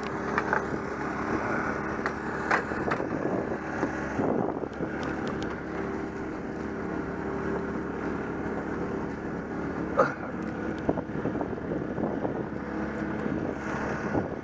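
An engine running steadily at an even speed, with scattered knocks and clatter on top, the sharpest about ten seconds in.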